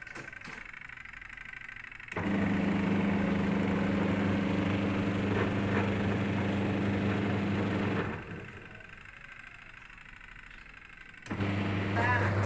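Twin-tub washing machine's spin-dryer electric motor switched on about two seconds in, running with a steady hum for about six seconds before it is switched off. It starts humming again near the end.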